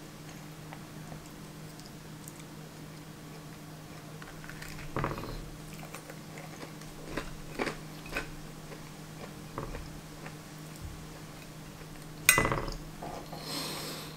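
Close-miked eating: a metal fork clicking and scraping on a ceramic plate and mouth chewing, with one sharp ringing clink of the fork on the plate about twelve seconds in. A steady low hum lies underneath.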